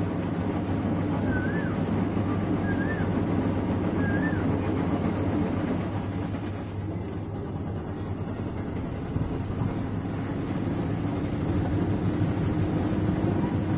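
Videocon top-loading washing machine running with a steady motor hum, working again after wiring chewed by a rat was rejoined. A short high chirp repeats about every second and a half through the first four seconds, and the hum's tone shifts after the middle.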